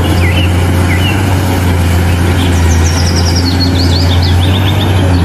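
Caterpillar 390D hydraulic excavator's diesel engine running with a steady low drone while it works, with birds chirping over it, more often in the second half.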